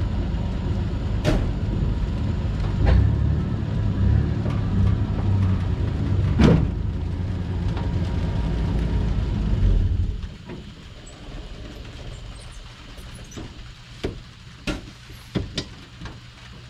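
Engine of a four-wheel-drive tow vehicle running under light load as it moves a jeep on a tow bar, with a few sharp knocks along the way. The engine stops suddenly about ten seconds in, leaving a few light clanks.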